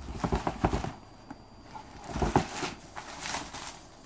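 Cardboard boxes being handled: short scrapes, rustles and knocks of a shipping box and the shoe box inside. The handling is busiest in the first second, then comes in a few scattered knocks.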